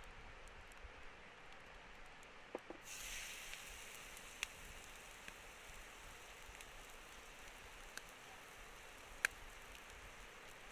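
Campfire cooking: a steady soft hiss broken by a few sharp crackles or pops, the loudest near the end, as of wood burning or food sizzling over the fire.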